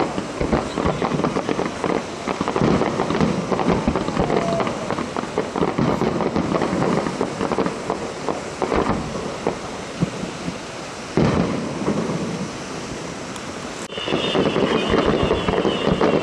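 Fireworks display: a continuous barrage of shells bursting and crackling, with irregular bangs and one especially loud bang about two-thirds of the way through. Near the end a high wavering whistle comes in over the bangs.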